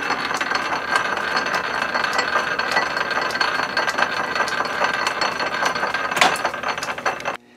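Metal lathe running in power feed, its change gears and lead screw turning with the half nut engaged: a steady whine over a dense clatter of gear teeth and a quick low beat. It cuts off suddenly near the end.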